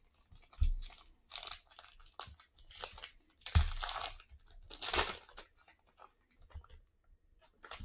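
Cardboard and paper packaging of a sports card box being torn and crinkled by hand as the cards are taken out, in a run of short rustling bursts with a couple of soft knocks.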